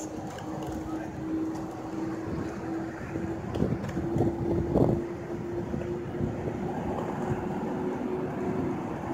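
Airport apron ambience: a steady drone from jet airliners on the airfield, with gusts of wind buffeting the microphone, the strongest about five seconds in.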